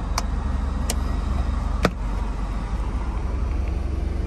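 Clicks from the centre console's cool-and-hot box in a Toyota Granvia: its switch being pressed and its lid latch opening. There are three sharp clicks in the first two seconds, the loudest near two seconds in, over a steady low hum in the cabin.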